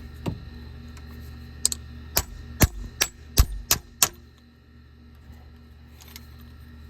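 Hammer striking a bent steel cable bracket backed by a second hammer held as a dolly, straightening the bent bracket. One blow comes near the start, then about seven quick sharp strikes follow between about one and a half and four seconds in.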